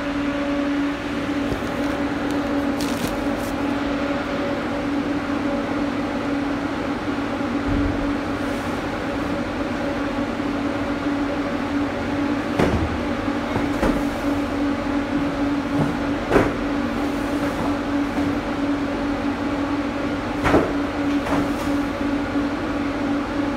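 Steady machine hum inside an empty truck cargo box, one even tone throughout, with a few scattered knocks from about halfway in.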